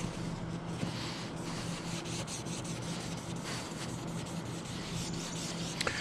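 A wadded paper towel wet with soapy water scrubbing an RV roof, a steady rubbing and scraping to clean it before an antenna mount is glued down.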